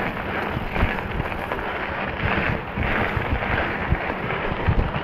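Specialized Stumpjumper mountain bike climbing a steep, rough trail: irregular knocks and rattles from the tyres and frame over roots and rocks, under a steady rush of wind noise on the microphone.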